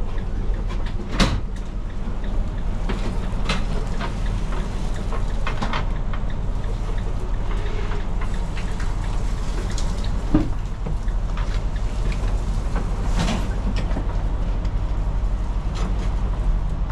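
Ram ProMaster cargo van running steadily, its engine hum low and even, with several sharp clunks and rattles on top, the loudest about a second in.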